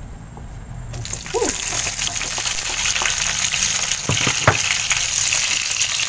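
Tomato halves, red chilies and shallots hitting hot oil in a frying pan, sizzling from about a second in, with two sharp knocks of a wooden spatula against the pan a little past the middle. The vegetables are being fried for sambal terasi before grinding.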